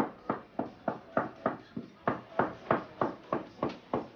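Cleaver chopping steadily on a wooden chopping block, about three strokes a second, each stroke ringing briefly.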